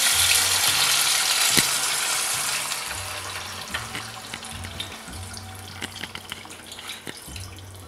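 Canned chicken broth poured into a pan of hot oil with fried ginger, garlic and fava bean paste. The liquid hits the oil with a loud sizzle that fades steadily as the broth cools the pan, and the pour trickles and splashes beneath it.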